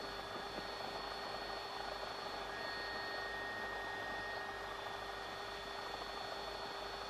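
Steady engine drone of the aircraft carrying the surveillance camera, an even rushing noise with a steady hum in it; a faint high whine joins about two and a half seconds in.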